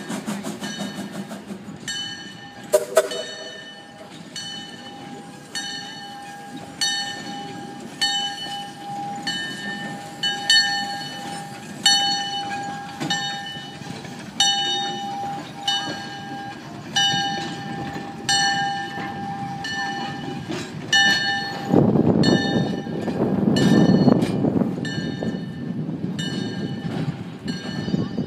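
Steam tank-engine switcher's bell ringing steadily, about one strike a second. A short whistle toot comes about three seconds in, and a loud rush of noise from the passing engine rises and fades between about 22 and 25 seconds.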